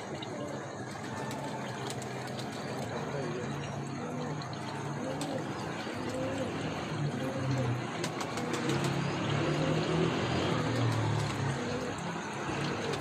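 Indistinct voices talking in the background over a steady hiss of outdoor noise. The talk grows a little louder from about a third of the way in.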